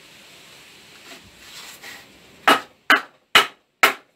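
Four blows of a wooden mallet, about half a second apart, knocking a cut-down wooden piece into place on a workbench leg to seat it in its housing joint, a snug fit. Quieter handling noise from fitting the piece by hand comes before the blows.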